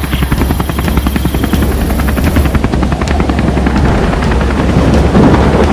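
Helicopter rotor sound effect: a fast, steady chopping over a low hum as a helicopter flies in.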